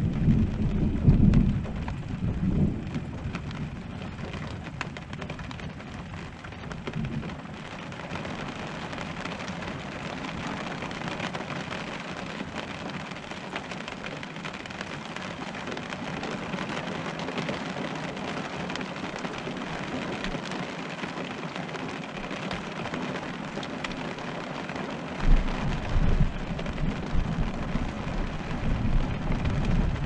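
Steady rain falling on an RV's roof, with thunder rumbling: one roll dies away over the first few seconds, and another starts about 25 seconds in and runs on.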